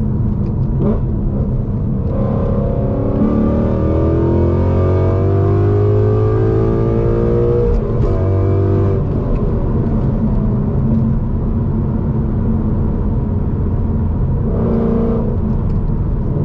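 2016 Ford Mustang GT's 5.0 Coyote V8 through Kooks headers and a Corsa Extreme cat-back exhaust, on the move. The engine note climbs under acceleration from about three seconds in, falls back about eight seconds in, and swells again briefly near the end.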